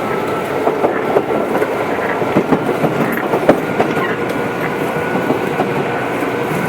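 Tobu 8000 series electric train running at a steady pace, heard from inside the car: a continuous rumble of wheels on rail with many irregular sharp clicks of wheels over rail joints and a faint steady whine.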